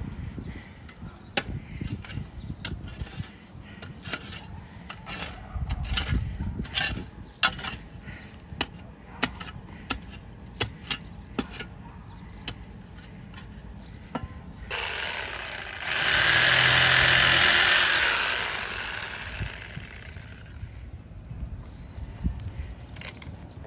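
Scattered knocks and clicks, then a corded reciprocating saw runs for a few seconds, cutting through a tree root; it is loudest for about two seconds before dying away.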